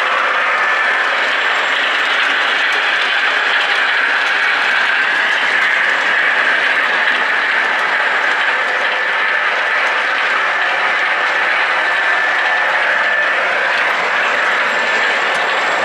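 O gauge model train running along the layout's track: a steady rumble of metal wheels on the rails, with a faint high steady tone above it.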